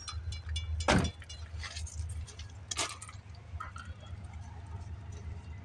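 Handling noise and clatter: a loud thump about a second in, a sharper knock about two seconds later, and small clinks, over a steady low rumble.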